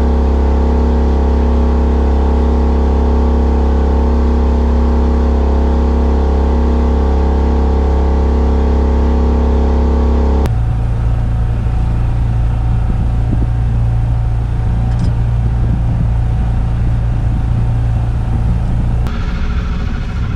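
A small sailboat's petrol motor running steadily under way. Its note shifts suddenly about halfway through, then stays steady again.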